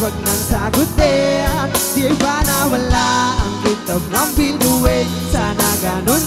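Live rock band playing: a drum kit keeping a steady beat, electric guitar and bass guitar, with a melodic lead line on top.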